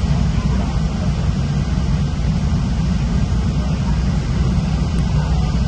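Loud, steady low rumble of a Metra commuter train, with no distinct knocks or horn.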